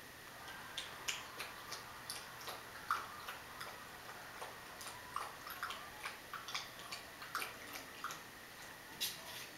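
Rottweiler puppy lapping water from a plastic bowl: irregular wet clicks and laps, a few a second.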